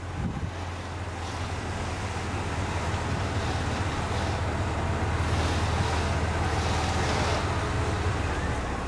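Steady running noise of a golf cart being ridden along, with wind rushing over the microphone and a constant low hum underneath.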